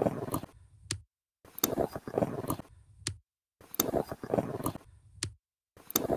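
A short snippet of live-stream audio is looped about three times with silent gaps between. Each pass ends in a sharp, pronounced click, which is suspected to be a mouse click or a hardware switch flicking the picture over to a green screen.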